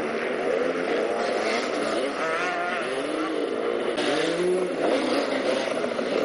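Several enduro dirt bike engines revving hard under load on a muddy climb, their pitch rising and falling again and again as the riders work the throttle.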